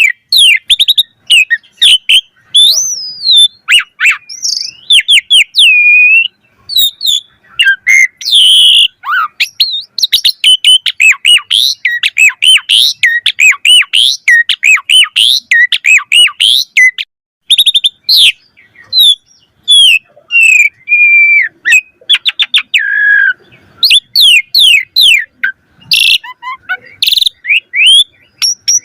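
Javan pied starling (jalak suren) singing a long, varied song: rapid whistles, chirps and rising and falling glides delivered in quick, loud phrases with only brief pauses.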